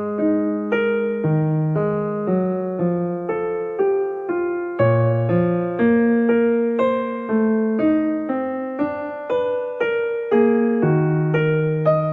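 Slow, gentle solo keyboard music in a piano sound: single notes struck one after another, about two a second, each fading, over held low bass notes.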